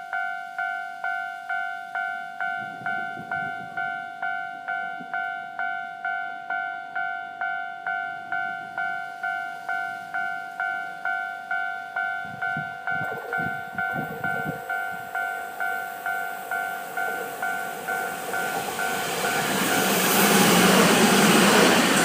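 Japanese railway level-crossing warning bell ringing steadily, about two strikes a second. Near the end a Keio Inokashira Line electric train comes up and runs through the crossing, its noise rising until it drowns out the bell.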